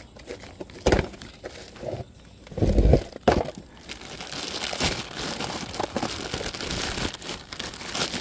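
Plastic wrapping crinkling as a new brake rotor is unwrapped by gloved hands, filling the second half. Before that come a few knocks and a heavy thump about three seconds in.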